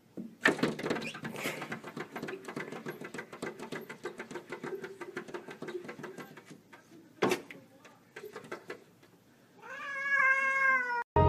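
Two domestic cats facing off through a glass door: a long, low, pulsing growl for the first several seconds. A single sharp knock about seven seconds in, then one drawn-out meow near the end.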